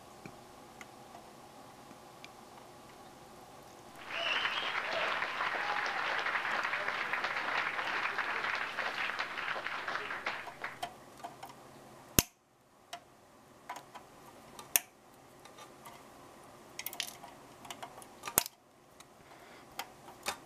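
About six seconds of loud, dense crackling and rustling, then several sharp single snips spaced a few seconds apart: flush cutters clipping the excess leads of newly soldered capacitors on a fluorescent light's ballast circuit board.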